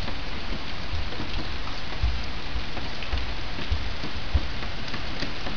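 Rain falling and dripping steadily on a garden, a dense patter of many small drop ticks, with irregular low thuds now and then.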